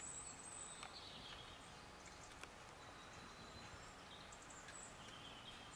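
Near silence: faint background noise with a few faint, high, short chirps.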